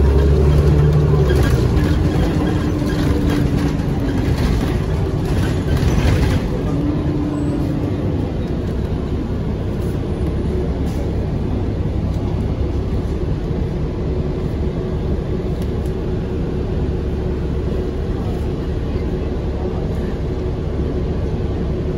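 Ride on a 2000-series DC Circulator bus heard from on board: engine and road noise, heavier in the first six seconds or so, then settling into a steady drone with a faint constant whine.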